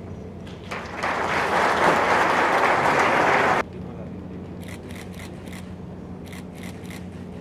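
Audience applause starting about a second in and cut off abruptly after under three seconds, followed by low room sound with a few faint clicks.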